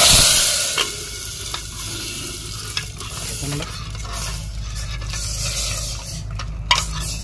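Tempering (chhaunk) of dal: hot spiced oil from a ladle poured into dal in an aluminium pressure cooker, giving a loud sizzling hiss right at the start that fades over a second or two. A softer sizzle follows, with a few ladle clinks as it is stirred.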